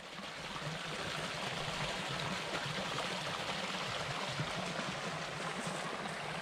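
Small woodland stream running over a low rock ledge into a shallow pool: a steady rush and splash of water.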